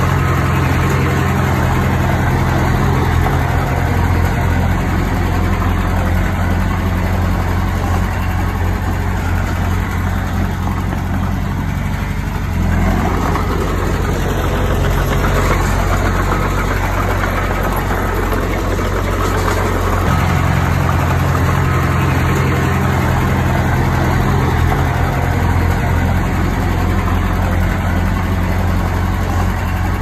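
Diesel engine of a small Komatsu D20P crawler bulldozer running steadily, its low note shifting a little about 12 seconds in and again around 20 seconds.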